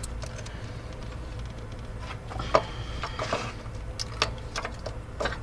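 Scattered light clicks, taps and rattles of hand tools and car parts being handled, over a steady low hum; the sharpest click comes about two and a half seconds in.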